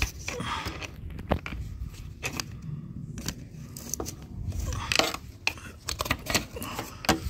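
Irregular clicks and scraping of a flat screwdriver prying up a plastic wiring-harness connector on a car's transmission to release it.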